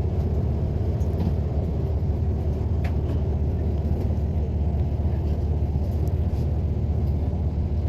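Steady low engine rumble of an airport apron shuttle bus, heard from inside the bus while it waits, with a few faint clicks.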